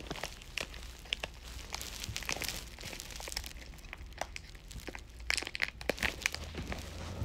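Plastic packaging crinkling and rustling as it is handled, with many irregular sharp crackles, busiest about two seconds in and again near the end.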